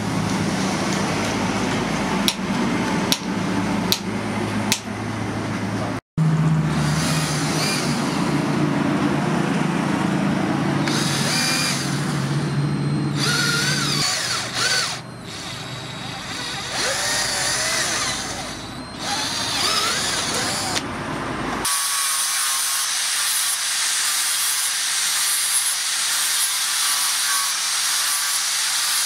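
A hand hammer strikes a steel punch on an anvil with several sharp blows. Then a cordless drill bores into a handle piece, its pitch wavering and squealing, and near the end an angle grinder with a flap disc grinds a steel sprocket with a high steady whine.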